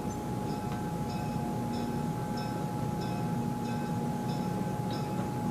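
Locomotive bell ringing steadily, about one stroke every two-thirds of a second, over a low engine rumble and a steady high hum.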